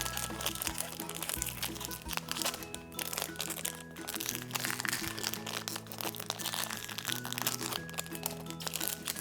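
Background music playing over the crinkling and crunching of a small plastic wrapper being torn and pulled open by hand.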